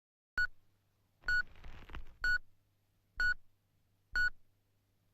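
Electronic beep sound effect: five short, identical high-pitched beeps about a second apart, over a faint low hum.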